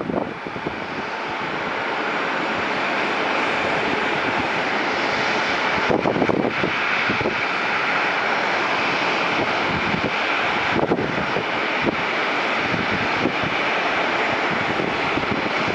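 Jet engine noise from a Boeing 787-8 with GEnx engines on its landing rollout, swelling over the first couple of seconds and then holding steady. There are a couple of brief bumps about six and eleven seconds in.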